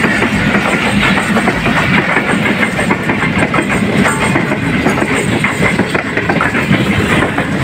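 Pakistan Railways passenger coaches passing through the station at speed close by, steel wheels clattering over the rail joints in a steady, loud rush.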